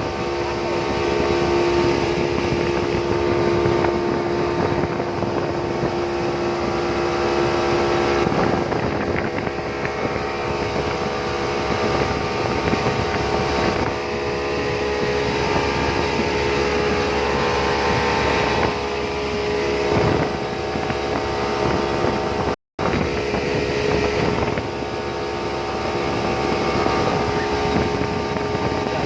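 Boat engine running steadily at a constant speed, heard from on board, with some wind on the microphone.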